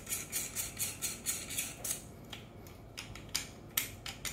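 Handling noise from an Arcturus AR airsoft rifle's buffer tube and lower receiver being turned in the hands: a quick run of small clicks and rubs, about three a second, for the first two seconds, then a few sharper ticks.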